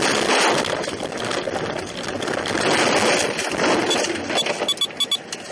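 A car ploughing off a snowy road into the verge: a loud rushing and crackling as snow, slush and brush pelt and scrape over the body and windshield, with a run of sharp ticks near the end.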